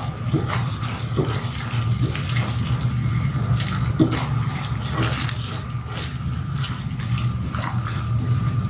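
Tofu and chillies in a thick sauce sizzling steadily in a non-stick wok while a spatula stirs through them, with scattered soft scrapes and taps of the spatula against the pan.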